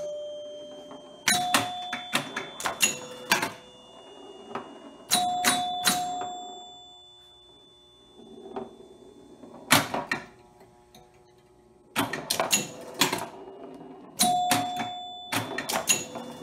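Gottlieb Card Whiz electromechanical pinball machine in play: several bursts of scoring chimes ringing amid rapid mechanical clicks, with quieter lulls between them.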